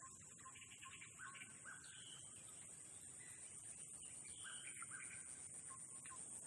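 Faint bird calls: short notes repeating every second or so, over a steady high-pitched hiss.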